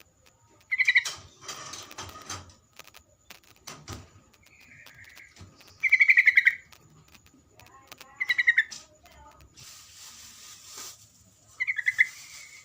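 Trucuk (yellow-vented bulbul) song played as a masteran tutor recording: four short bubbling phrases of rapid chirped notes, a few seconds apart, with faint hiss and clicks between them.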